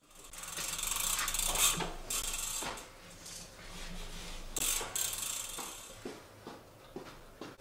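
Road bike's rear freehub ticking in a fast buzz as the bike is wheeled along while its rear wheel coasts, in two stretches, the second starting a little after halfway. Light knocks of footsteps on a wooden floor go with it.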